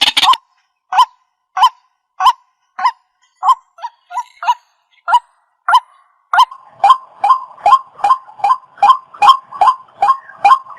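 A water bird giving a series of short, honking single-note calls, about one every half second at first, then quickening to two or three a second from about six seconds in.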